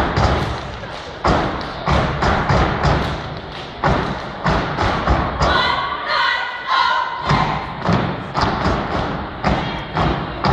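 Step team stepping: rhythmic stomps and claps at roughly two beats a second, ringing in a large hall. About halfway through, a short burst of voices calls out over the beat.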